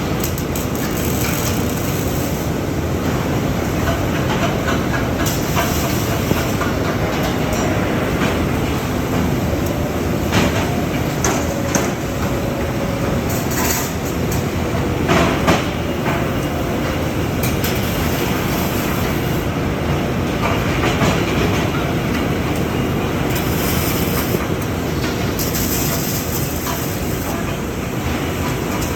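Factory noise from an automated robotic welding line: a steady din with a few sharp clanks around the middle and short stretches of high hiss.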